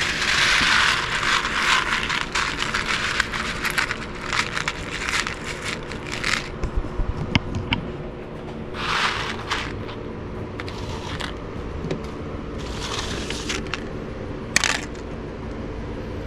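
Freshly roasted coffee beans poured out into a tray: a loud rush of rattling for the first couple of seconds, then a run of scattered clicks and rattles as the beans settle and are moved about. Three short rattling bursts follow later as the beans are stirred again.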